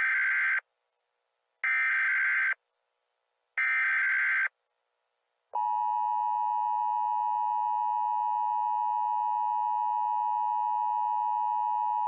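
Emergency Alert System SAME header: three short bursts of buzzing digital data tones, about a second apart. About five and a half seconds in, the steady two-tone EAS attention signal starts and holds.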